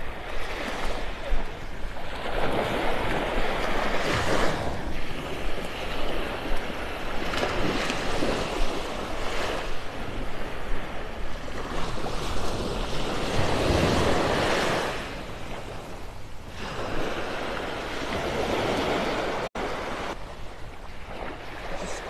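Small Gulf of Mexico waves washing up on a sandy beach, the rush swelling and fading every few seconds, with some wind on the microphone.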